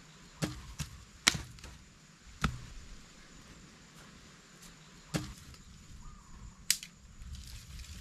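Wood being chopped: six sharp, irregularly spaced strikes.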